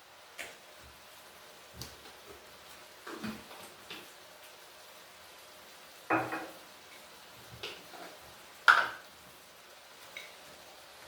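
Dishes and cutlery clinking and knocking in a handful of separate strikes, the loudest two about six and nine seconds in.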